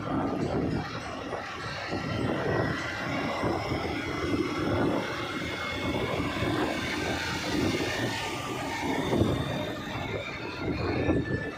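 Steady road noise from moving vehicles, with engine and tyre rumble and wind buffeting a microphone that is travelling along with the traffic.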